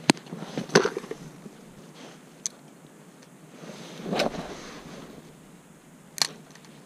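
Fishing tackle being handled while an ant fly is rigged on a drop-shot leader: four sharp clicks spread apart, with a brief rustle about four seconds in.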